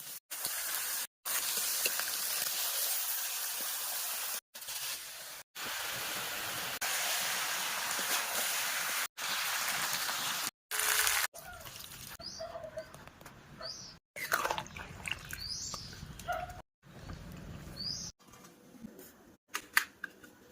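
A steady loud hiss in short cut-up stretches for about the first half, then quieter sound with small birds chirping, several brief rising chirps.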